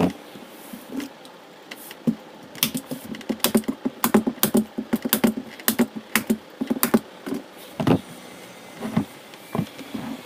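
Hands handling a plastic two-wheeler seat base and its vinyl cover on a worktable: a quick flurry of clicks, taps and knocks in the middle, then a few single knocks near the end.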